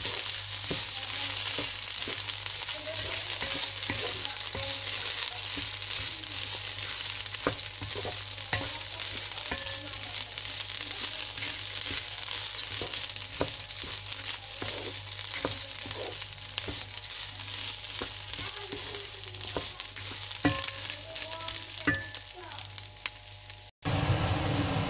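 Kalijira rice frying dry in a pot with whole spices and ginger-garlic paste, sizzling steadily, while a wooden spatula stirs it with scattered scraping clicks against the pot. Near the end the sound cuts out for an instant and a steady low hum takes over.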